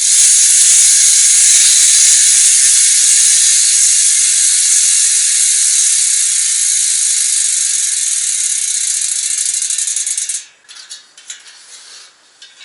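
Novatec Diablo rear hub's freehub ratchet buzzing as the wheel spins freely. The clicks come so fast they merge into a loud buzz that fades slowly and cuts off sharply about ten seconds in. A few light clicks follow near the end.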